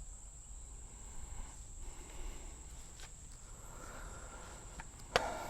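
Crickets chirring steadily in the background, with a few faint clicks and a sharp click near the end.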